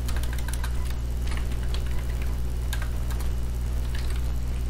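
Computer keyboard keys clicking irregularly as a word is typed, over a steady low hum.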